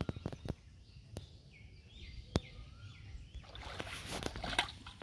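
Feet wading and splashing through shallow water, starting about three and a half seconds in. Before it, a few sharp clicks and faint bird chirps.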